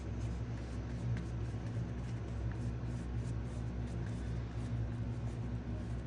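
A steady low hum, with a few faint light ticks.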